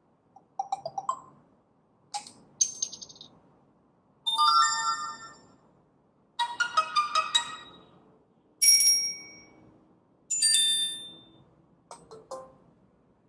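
Samsung Galaxy Ace 2 phone playing its preset alert tones one after another through its loudspeaker: about eight short, different chimes and jingles, each fading out or cut off within a second or two before the next one starts.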